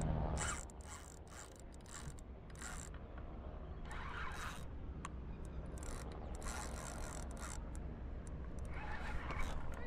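Fishing reel being cranked, a mechanical whirring with irregular clicks and ticks.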